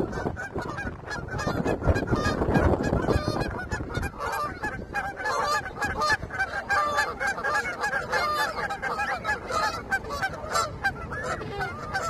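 A flock of Canada geese honking and clucking, with many short calls overlapping in a continuous chatter. A low rumble runs under the calls for the first few seconds.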